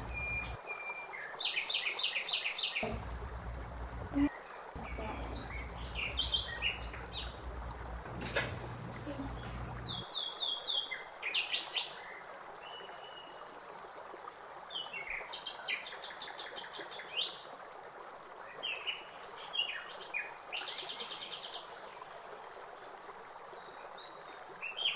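Small birds chirping and twittering in quick repeated notes and short trills, over a low hum that stops about ten seconds in.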